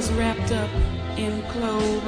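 Background music: a song with held sung notes over a steady bass line.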